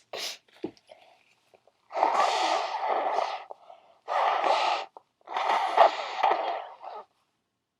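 A person breathing hard and snorting during a sneeze fit: a few short sniffs, then three long, noisy gusts of breath, the last one the loudest.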